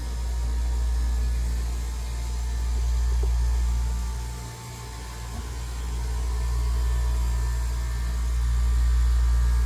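Steady hum and deep rumble of machinery in a yacht's engine room, with a few faint steady tones above it; the rumble swells and eases every couple of seconds.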